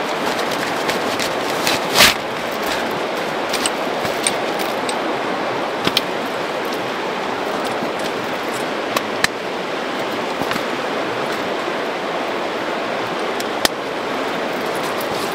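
Steady rush of river water, with sharp clicks and rustling as a fire-resistant cloth is handled and spread over a plastic camping stool; the loudest click comes about two seconds in.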